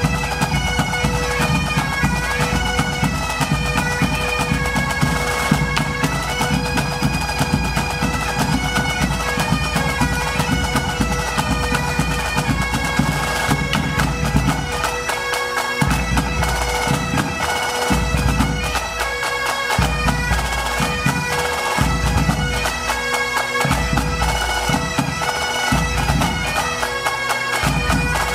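Pipe band playing: Highland bagpipes sound a steady drone under a fast, stepping melody, with snare drums and bass and tenor drums beating along. About halfway through the low drum part turns stop-start, coming and going about every second.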